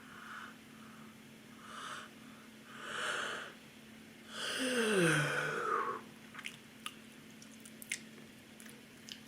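A woman yawning: three breaths, then a long voiced yawn about four and a half seconds in whose pitch slides down as it ends, followed by a few small mouth clicks and lip smacks.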